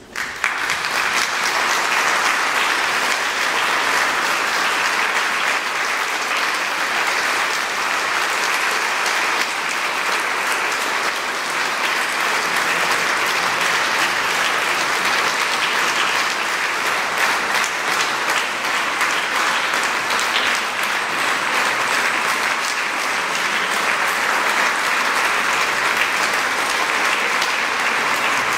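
Audience applauding, breaking out suddenly as the music stops and keeping up steadily.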